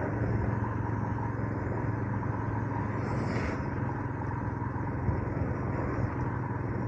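Royal Enfield Himalayan 411's single-cylinder engine running steadily at low road speed, under a steady rush of wind and road noise.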